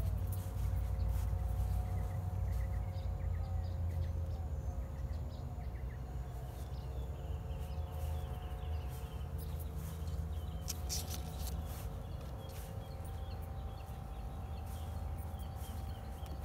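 Outdoor ambience: a steady low rumble under a faint steady hum, with scattered faint bird chirps and a few sharp ticks about eleven seconds in.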